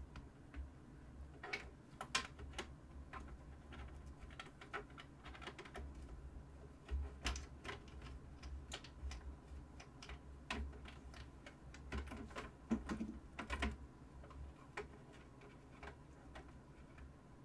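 Irregular light clicks and taps of SATA cables and plastic connectors being handled and pushed into place on an open PC test bench, with a few louder knocks around the middle. A low steady hum sits underneath.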